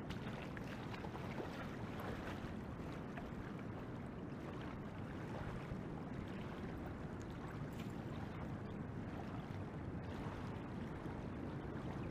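Steady rush of flowing river water, with wind on the microphone.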